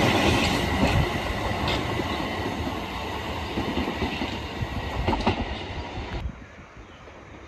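A Southeastern electric multiple unit moving away along the track, its rumble and wheel clicks over the rail joints fading steadily and dropping off sharply a little after six seconds.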